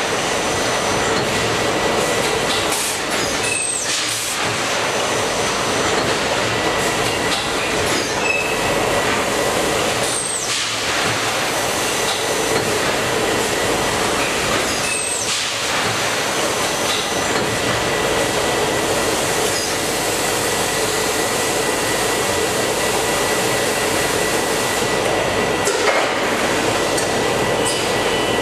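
Steady running noise of an automatic bagging and palletising line: conveyor rollers and drive motors turning, with a faint steady whine over most of it.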